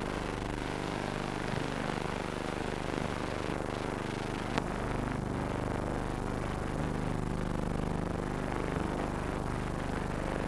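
Steady hiss and low hum of an old film soundtrack, with one sharp click about four and a half seconds in.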